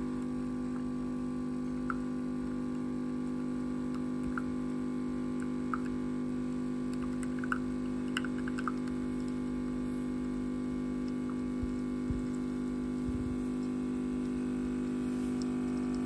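Nespresso capsule coffee machine brewing, its pump giving a steady hum as coffee runs in a thin stream into a cup, with a few faint ticks.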